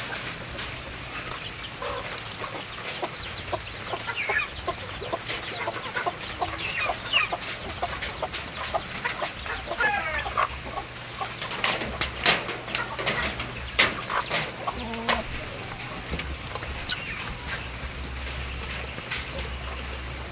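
Shamo-Sasso cross chickens clucking, with short calls and scattered sharp clicks and taps.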